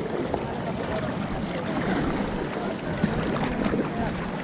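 Water splashing and sloshing around a plastic whitewater kayak and its paddle as it moves along a flowing channel, a steady watery noise without a clear stroke rhythm.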